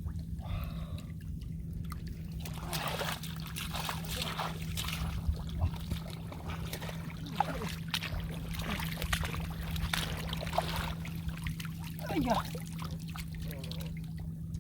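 Muddy water trickling and splashing irregularly as hands work through the mud and shallow water of a rice field, over a steady low hum.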